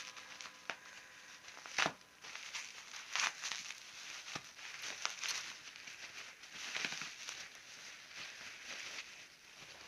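Packing paper crinkling and rustling as parts are unwrapped from the box, with a couple of sharp knocks as pieces are handled.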